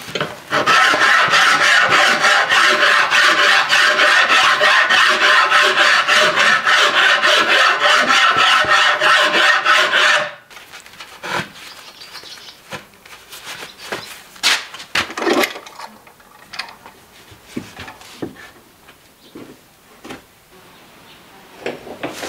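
Wood rasp stroking a hackberry bow stave in quick, even strokes, about four a second, stopping abruptly about ten seconds in. Then scattered quieter knocks and clicks of handling.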